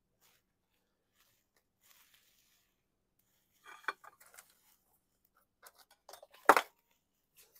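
Small metal parts and tools clinking and clicking as they are handled during a carburetor teardown: scattered light clicks, a short run of knocks about four seconds in, and one louder sharp clack near the end.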